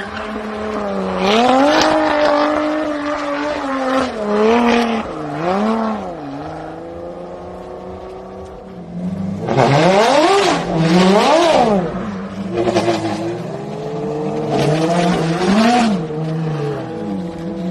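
A Lotus Evora's V6 revving up and down again and again while the car is slid round in tight circles, followed by a Ferrari FXX's V12 revving hard, its pitch climbing and dropping several times.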